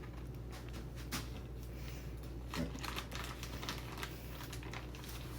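Light, irregular clicks and taps from chicken-breast catfish bait being mixed with a powder by hand, over a faint steady low hum.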